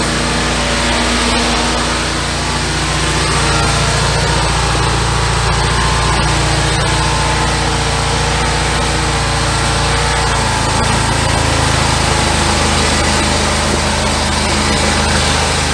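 High-pressure drain jetter's engine running steadily, driving the jetting hose; its note shifts slightly about ten seconds in.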